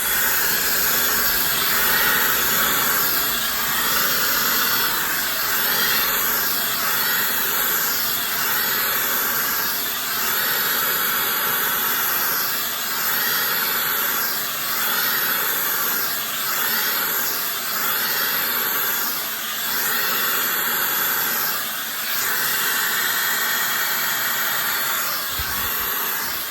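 High-speed ionic hair dryer with a nozzle attached, switched on abruptly and blowing continuously, a steady rush of air with a high-pitched whine over it. The level swells and dips slightly every couple of seconds.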